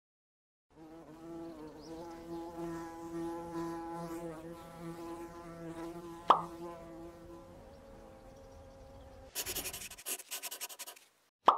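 Insect-like buzzing sound effect, steady with a slightly wavering pitch, with a sharp pop about six seconds in. Near the end the buzz gives way to a short, noisy rattling clatter.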